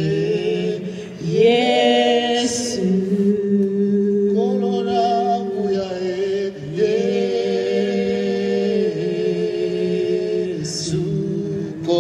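Voices singing a slow hymn in long held notes that change pitch every two to three seconds, with a slight waver on each note.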